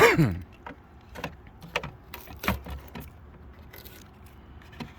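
Plastic third brake light housing being handled against the truck cab. It opens with a short squeak that falls in pitch, then comes a series of scattered light clicks and taps.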